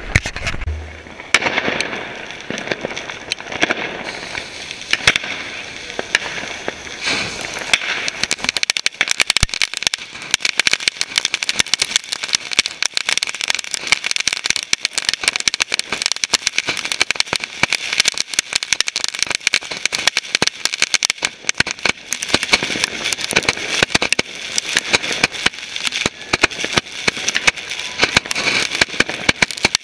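Firework fountains spraying sparks: a steady hiss overlaid with dense, rapid crackling that grows thicker about seven seconds in.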